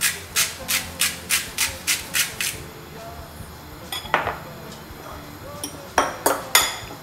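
Hand-twisted salt grinder crunching coarse pink rock salt, a quick run of rasping crunches about four a second for the first two or three seconds. Then a few light knocks of kitchenware on the counter near the end.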